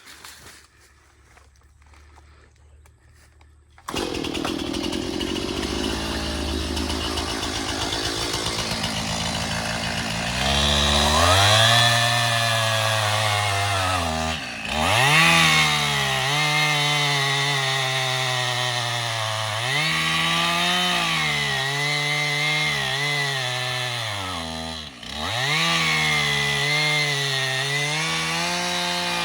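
A chainsaw comes in suddenly about four seconds in and runs at low speed. Near ten seconds it revs up and cuts into the tree trunk, its pitch sagging and recovering as it bogs down in the wood, with two brief drops in speed. This is a felling cut.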